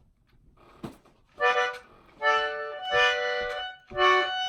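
A free-reed instrument playing short chords: three chord stabs, the middle one held longest, with a click just before the first.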